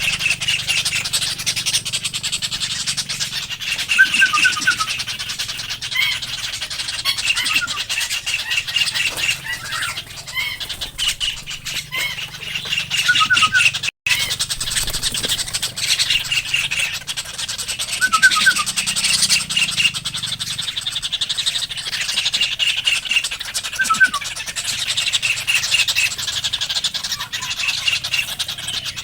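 Small birds chirping: quick series of short, high chirps repeating throughout over a steady high hiss, with a brief break about halfway through.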